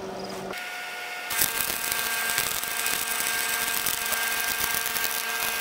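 Stick-welding arc from a Miller Thunderbolt welder striking sharply about a second in, then crackling steadily as an electrode burns along a crack in a steel mower deck.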